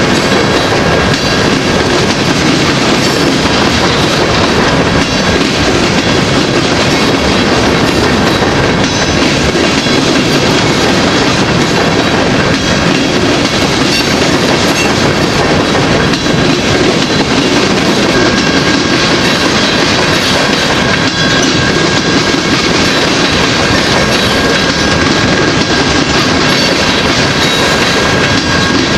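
Empty open-top rock hopper cars of a freight train rolling past steadily, their wheels clattering over the rails. A thin, steady, high tone runs over it.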